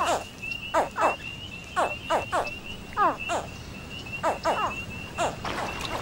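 American alligator hatchlings calling from the nest: short chirping cries that drop steeply in pitch, about a dozen, often in quick pairs. These are the hatchling calls that summon the mother to dig them out of the nest.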